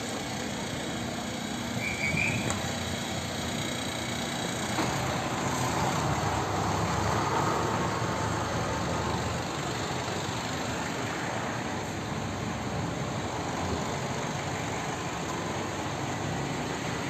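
Street traffic: motor vehicle engines running, a steady rumble and hiss that swells slightly partway through.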